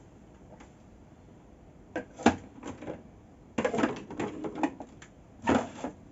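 Hard plastic clicks and knocks from handling helmets: a few sharp knocks about two seconds in, a dense clatter a little later, and one more knock near the end.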